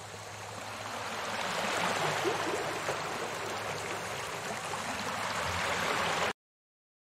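Steady rushing of water, swelling over the first two seconds and then holding, with a faint low hum underneath; it cuts off abruptly about six seconds in, followed by silence.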